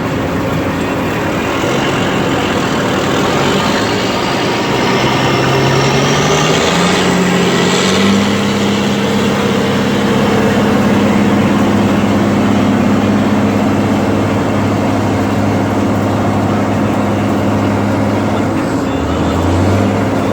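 John Deere 9610 combine running while harvesting corn, a steady engine drone with machinery whine. About six to eight seconds in the pitch climbs, with a rising whine, then holds steady.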